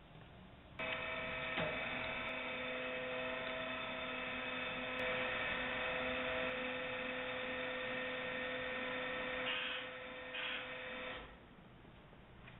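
Gallay bin blender's electric drive running with a steady multi-toned hum, switching on about a second in and cutting off abruptly about eleven seconds in.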